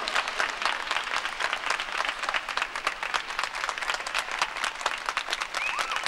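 Audience applauding, dense clapping throughout, with a high cheer near the end.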